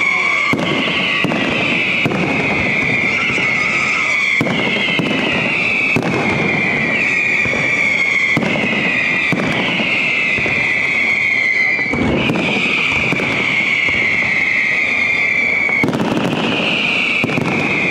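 Aerial fireworks going off nonstop: high whistles falling in pitch one after another, about once a second, over continuous crackling and bangs.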